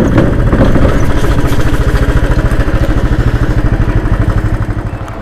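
Royal Enfield Bullet's single-cylinder engine running at low speed with an even, rhythmic thump, dropping in level near the end.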